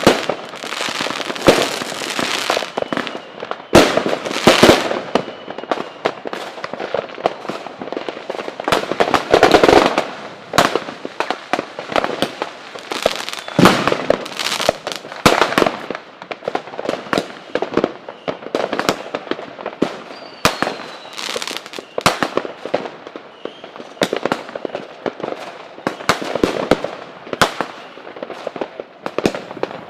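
Fireworks going off continuously: a dense, irregular barrage of sharp bangs and firecracker crackling, with louder clustered bursts every few seconds and a few faint whistling glides of rockets.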